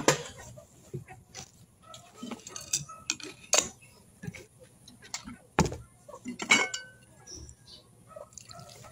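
Scattered light clinks and knocks of dishes and utensils being handled, a few louder ones a little past the middle.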